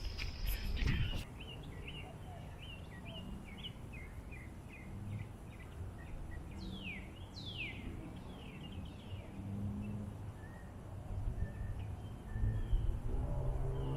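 Birds chirping, a quick run of short chirps with two longer falling calls in the middle, over a low background rumble. Near the end a long, low burp begins.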